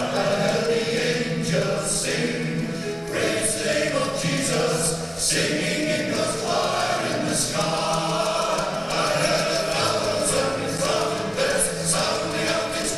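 A choir singing a sacred song.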